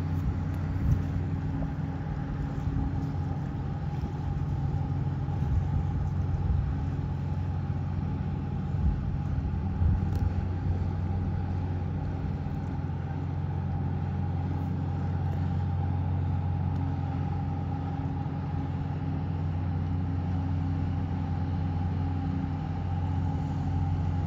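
Low, steady drone of the coast guard ship Limnos's engines, holding a constant pitch as the ship cruises past under way, over an even hiss.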